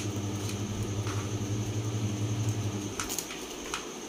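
Kitchen knife cutting through bottle gourd onto a plastic chopping board: a few short sharp taps near the start and a few more about three seconds in. Under them runs a steady low electrical hum that stops about three seconds in.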